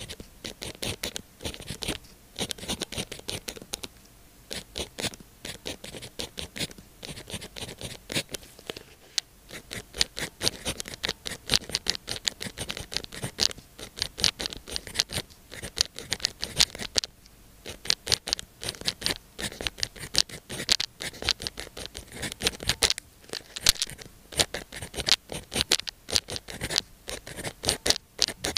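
Pen writing on sticky-note paper: quick, crisp scratching strokes in bursts, with brief pauses between words.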